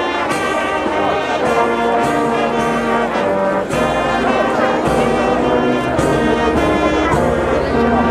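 Brass band music: trumpets and trombones holding chords over a steady beat of about two strokes a second.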